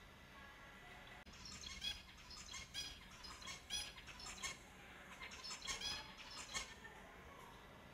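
Finches calling: short chirps in quick bunches, starting about a second and a half in and stopping a little before the end.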